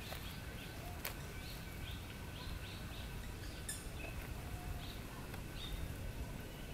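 A bird chirping over and over in short, falling notes, a few a second, over a steady low rumble; a single sharp click about a second in.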